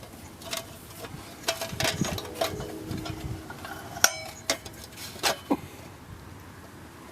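Scattered metal clicks, clinks and light knocks of a Coleman gas lantern being handled, the sharpest about four seconds in.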